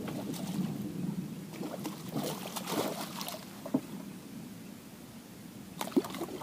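A hooked pacu thrashing and splashing at the water's surface, in rough bursts that are heaviest about two to three seconds in. Two sharp clicks follow, one near the middle and a louder one near the end.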